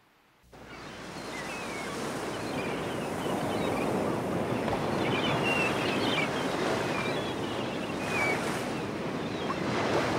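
Ocean surf washing in steadily, fading in about half a second in, with a few short, high bird calls over it.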